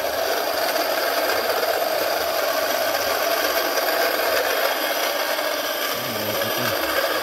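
Electric motor running steadily, turning a shaft and steel wheel rim on a homemade metal frame, with a continuous whirring and rubbing noise.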